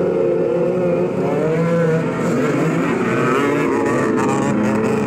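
A pack of children's quad bikes accelerating away from the start line together, several small engines revving at once.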